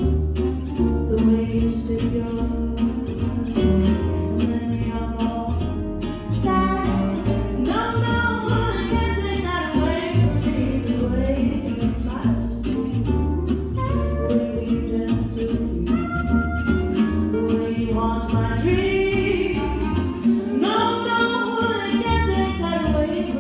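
Gypsy jazz band playing a song: strummed acoustic guitar chords and a walking low bass line under a singing voice carrying a wavering melody.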